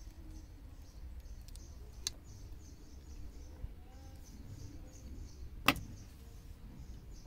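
Small birds chirping repeatedly in the background over a low rumble. A light click about two seconds in and a louder, sharp click a little before six seconds come from handling the metal coax F-connectors as the cables are set down.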